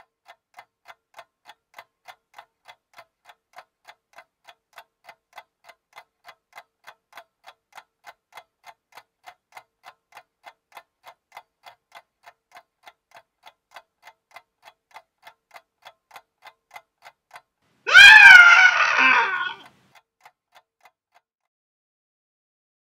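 Faint, steady ticking at about three ticks a second. About eighteen seconds in, a loud, wavering, high-pitched scream breaks in and lasts about a second and a half.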